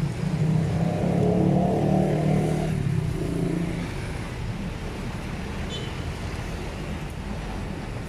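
A motor vehicle's engine running close by, loudest in the first few seconds and fading out about four seconds in, over steady street traffic noise.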